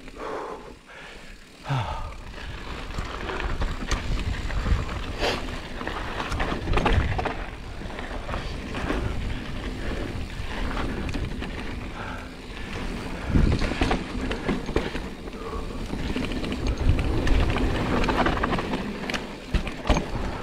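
Giant Reign 29 2 mountain bike ridden down rough singletrack: tyres rolling over dirt and rock with frequent irregular clatters and knocks as the bike hits bumps, under a low rumble of wind buffeting the microphone.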